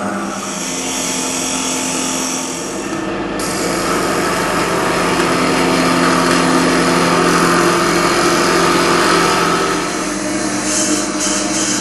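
Electric drill spinning a 15 mm grinding bit at high speed, grinding the stainless-steel body of a Leatherman Wave+ multi-tool: a steady motor whine under the rasp of the bit on the metal.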